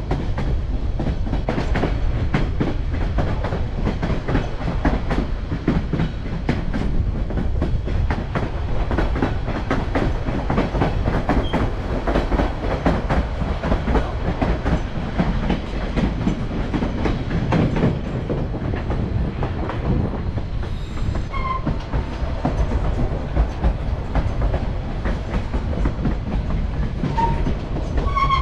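White Pass & Yukon Route narrow-gauge train running, heard from aboard: a steady rumble with wheels clicking over the rail joints. A few brief high squeaks come in the last third.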